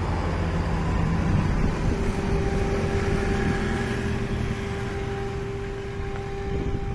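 A heavy road vehicle's engine running with a steady low rumble and a constant hum, slowly fading over the last few seconds as it draws away.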